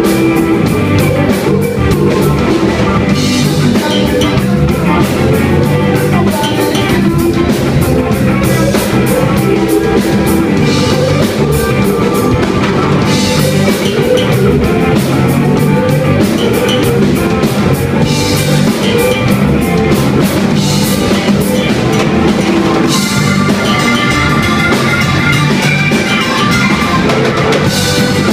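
A live rock band playing loudly: drum kit, electric guitar, electric bass and keyboard.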